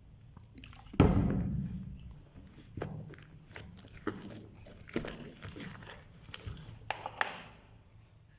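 Slime being handled: a heavy thump about a second in, then sticky clicks and wet smacks as it is squished and pulled.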